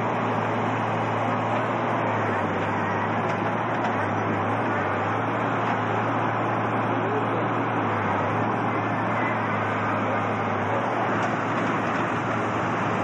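Steady diesel engine noise from earth-moving machinery at work, a tracked loader loading sand, with a constant low drone underneath.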